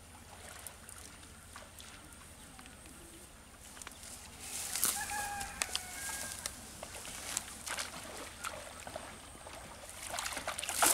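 A chicken calls briefly about halfway through, over quiet outdoor ambience. Near the end water sloshes as a man wades into shallow pond water carrying a cast net.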